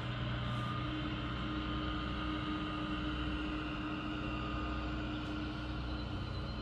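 Engines of green-and-yellow compact mowing tractors running at a steady drone as they drive slowly along the street.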